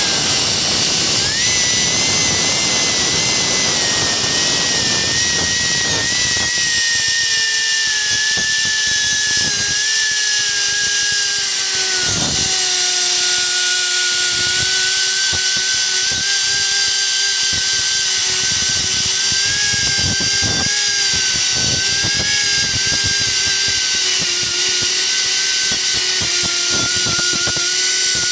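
Die grinder running continuously under load, grinding the heads off the steel rivets that hold the gear to a clutch basket: a steady high whine that sags slowly in pitch as the wheel bites, with a gritty grinding hiss over it.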